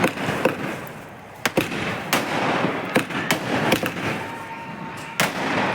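Multi-shot 'sky shot' aerial firework cake going off: about ten sharp bangs at uneven intervals, with a crackling hiss between them.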